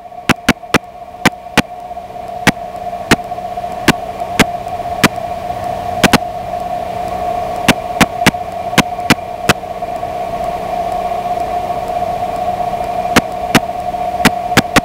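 Open-mic hiss on an aircraft intercom and radio audio feed: a steady hiss carrying a constant whine, broken by irregular sharp static clicks. It fades up and grows gradually louder over the first several seconds.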